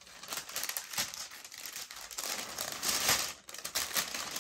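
Packaging crinkling and rustling as a purchase is unwrapped by hand, getting louder in bursts about two to three seconds in and again near the end.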